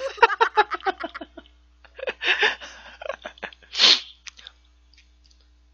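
A man laughing: a quick run of pitched ha-ha pulses for about the first second and a half, then breathy laughs, and a sharp burst of breath just before four seconds in.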